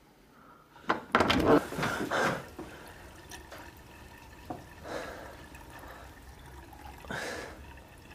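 A sharp click about a second in, then water splashing in several bursts, loudest just after the click: someone washing.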